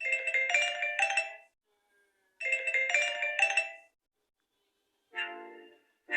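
Samsung Galaxy Tab A 8.0 (2017) playing its preset ringtone sounds through its speaker. A short melody of a few notes plays twice, then a different tone begins about five seconds in.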